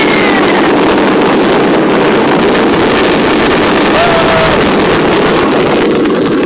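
Fireworks bursting in rapid succession, a dense continuous barrage of crackles and bangs that merges into one steady rumble.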